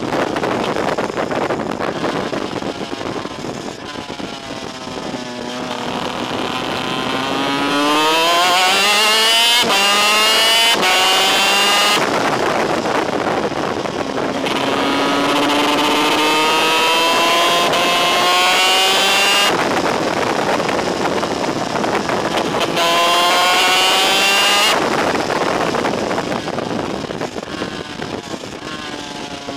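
Onboard sound of a superkart's DEA 250cc two-stroke engine at full throttle, its pitch climbing through the gears with several upshifts. Wind rushes over the microphone, and the engine note drops away near the end as the throttle comes off.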